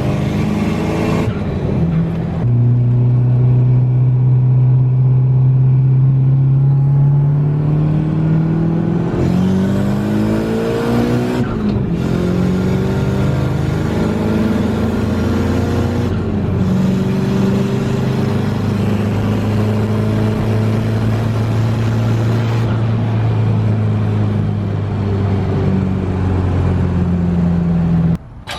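SR20 four-cylinder engine in a Nissan 240SX S14 driven hard, its revs climbing and dropping several times through the gears of the swapped-in VG30 transmission. The sound cuts off abruptly near the end.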